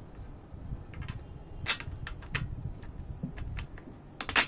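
Scattered clicks and taps of a plastic telescope yoke mount being fitted onto aluminium tripod legs and screwed in by hand, with a sharper double click near the end.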